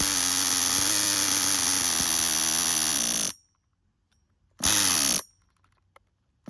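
Electric starter spinning the nitro engine of a Tamiya TGS-R RC car without it catching: a steady high whine held for about three seconds that cuts off suddenly, then a short half-second burst. The engine is failing to prime.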